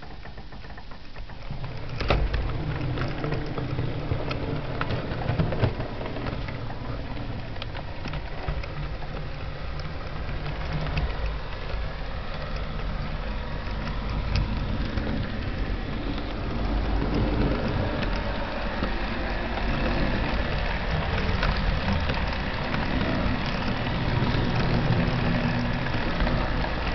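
0 gauge electric model train running, heard from aboard: a steady motor hum and rumble with the wheels clicking and rattling over the track, starting up about two seconds in.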